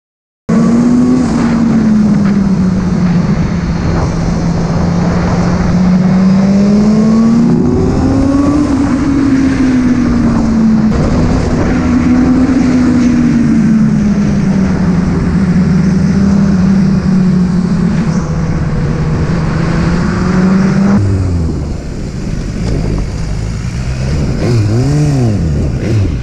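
BMW naked sport motorcycle's engine under way, its pitch rising and falling smoothly as the bike rides along. Near the end it falls to a lower pitch as the bike slows, with a couple of quick revs.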